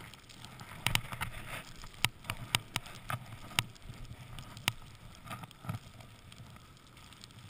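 Snowboard riding through fresh powder snow: a steady hiss of the board sliding, with wind on the microphone, broken by a string of sharp clicks and knocks from about one to five seconds in.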